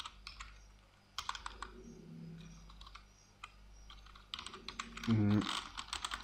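Typing on a computer keyboard: irregular clusters of key clicks, with pauses between them. About five seconds in there is a brief sound of a person's voice.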